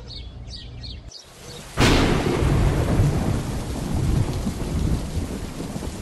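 Thunderstorm: a sudden loud thunderclap about two seconds in, then steady rain with low rumbles of thunder.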